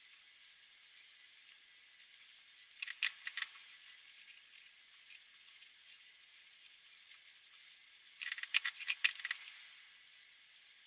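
Plastic marker pens being swapped and handled: two brief clusters of sharp clicks and clatter, about three seconds in and again near eight and a half seconds, like caps snapping off and on, over a faint steady hiss.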